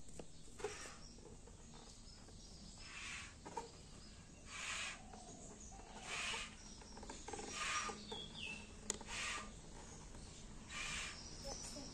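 Faint outdoor background: soft hissing puffs recurring about every one and a half seconds, with a few faint bird calls.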